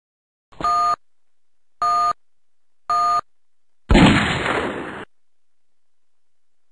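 Three short electronic beeps about a second apart, then a single sharp bang that dies away over about a second: a race-start countdown and starting pistol sound effect.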